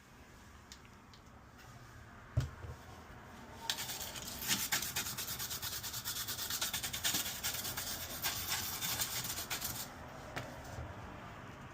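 Scrubbing a burnt stove control circuit board clean, with rapid back-and-forth strokes for several seconds after a few light ticks.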